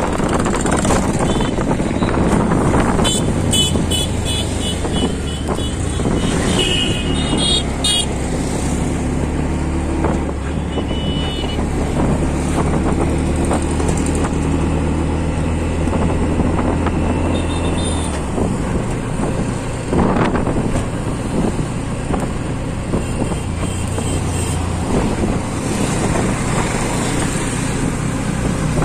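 Auto-rickshaw engine running steadily, with road noise from inside its open cabin while it drives through traffic. Horns from the traffic beep several times between about 3 and 8 seconds in.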